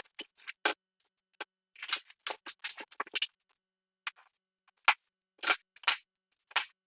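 Quarter-round trim being nailed down along new flooring: a quick, irregular series of short, sharp pops of the nails being driven, about eighteen in all, bunched in runs with brief pauses between.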